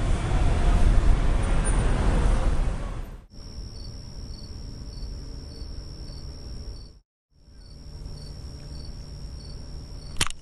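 Loud city traffic noise that cuts off suddenly about three seconds in. It gives way to a steady high-pitched trill of night insects, crickets, pulsing faintly about twice a second and broken by a brief dropout. A sharp click comes near the end.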